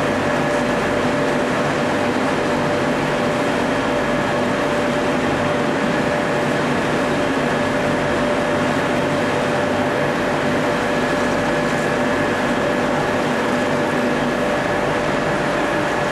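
D51 ring rolling machine running steadily as it rolls a red-hot steel ring: an even mechanical hum with a constant tone through it and no knocks.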